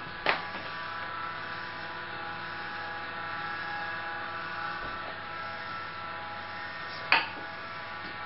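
A small electric motor buzzing steadily, starting with a sharp click just after the start and stopping with another sharp click about seven seconds in.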